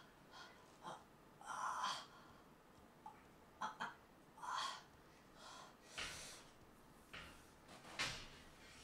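A man's pained gasps and strained breaths in short bursts about every second, from the pain of a hurt shoulder.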